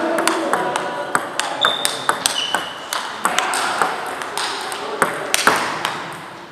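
Table tennis balls clicking off bats and tables in quick, irregular strokes, from the rally in the foreground and from several other tables at once. There are two brief high squeaks about two seconds in.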